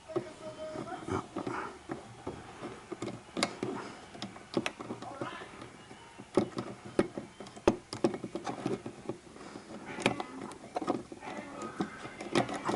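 Irregular metallic clicks and knocks of a battery terminal puller and hand tools working a stuck wiper arm off its post.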